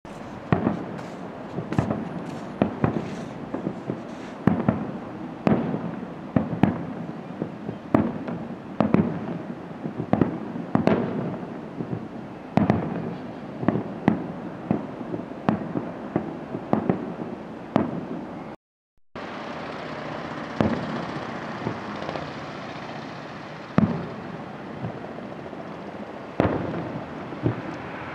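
Japanese aerial firework shells (hanabi) bursting in quick succession, sharp booms about one to two a second, each with a short echoing tail. After a brief dropout of the sound about two-thirds through, the bursts come more sparsely.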